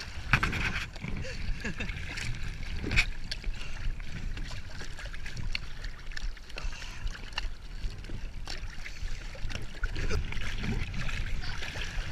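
Water splashing and lapping around a Laser 2000 sailing dinghy, with a few sharp knocks.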